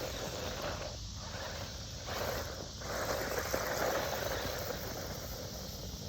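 Electric Rlaarlo AM-D12 RC buggy running over loose dirt, a hissing rush of tyres and motor that swells and drops away a few times as the throttle comes on and off.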